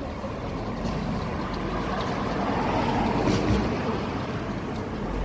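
City street traffic: the steady noise of vehicles, swelling as one passes near the middle and easing off again.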